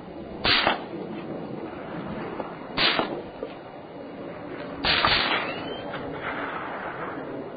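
Three suppressed gunshots about two seconds apart, each a sharp, whip-like crack. The third rings on a little longer.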